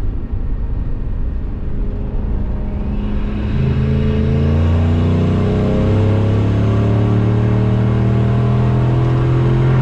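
Turbocharged 5.4-litre V8 of a 2003 Ford F-150 accelerating hard, heard from inside the cab. The engine gets louder about three and a half seconds in and pulls with slowly rising revs, then eases off at the very end.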